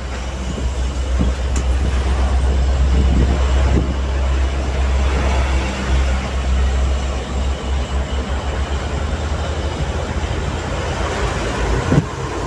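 Cab noise of a moving truck at highway speed: a low engine drone under steady road and wind noise. The drone holds steady at first, then turns uneven about seven seconds in.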